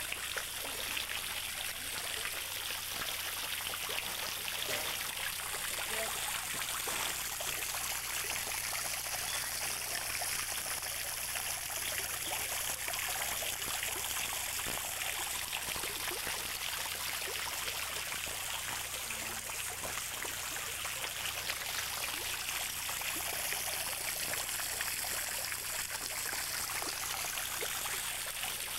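A steady, even rushing hiss with a faint low hum beneath it and no distinct events.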